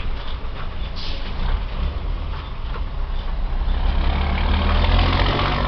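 Scania R420 truck's straight-six diesel running loud through a straight-through exhaust, building up over the last couple of seconds. A short hiss comes about a second in.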